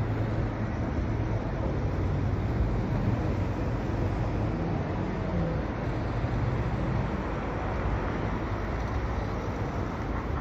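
Steady road traffic: cars driving along a multi-lane city street, a continuous rush of engines and tyres with a low hum.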